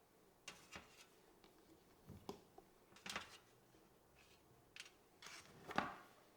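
A handful of soft, irregular clicks and short scrapes of kitchen utensils being handled, about eight in all, the loudest near the end.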